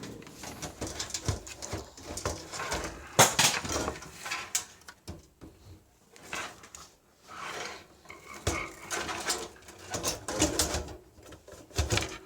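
Irregular clicks, knocks and light metallic clattering of a desktop PC case and its parts being handled, with the sharpest knock about three seconds in.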